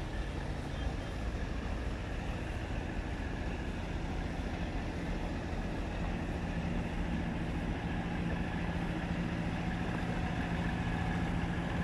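Diesel engine of a parked log-hauling semi-truck idling steadily, its low hum growing louder about halfway through as the truck's cab is passed.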